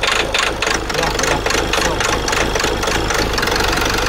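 Diesel car engine idling roughly and loudly, with a regular clatter of about five beats a second that evens out into a steadier run near the end. The mechanic traces this rough running to a faulty fuel rail pressure sensor.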